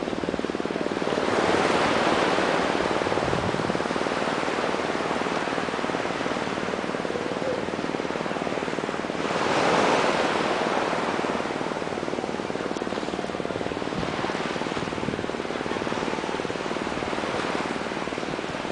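Small sea waves washing in the shallows, a steady hiss that swells twice: about a second and a half in, and again about nine and a half seconds in.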